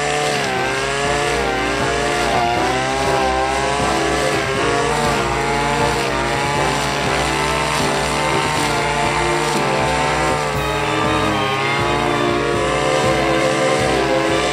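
Brush cutter engine running at high revs with a shredder blade cutting weeds, its pitch wavering and dipping as the blade takes load.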